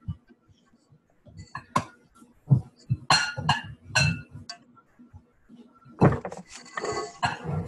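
Kitchen utensil clinking and knocking against a mixing bowl in irregular strokes while butter and sugar are creamed by hand, the clatter growing denser near the end.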